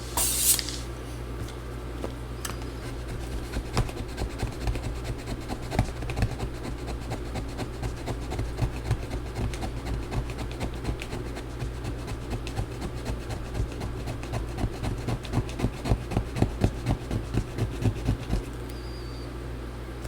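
Irregular scraping and rubbing strokes, getting quicker and denser toward the end, as leftover battery adhesive is scraped off inside a MacBook Pro. A brief hiss comes right at the start, and a steady low hum runs underneath.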